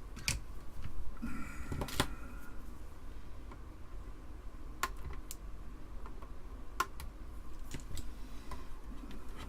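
Scattered sharp clicks and light taps of small tools and parts being handled on a computer circuit board, with a short squeaky scrape about a second in.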